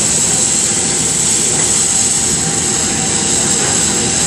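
Hydraulic diamond wire saw running steadily as it cuts reinforced concrete: a loud, continuous machine noise with a steady high-pitched hiss over it.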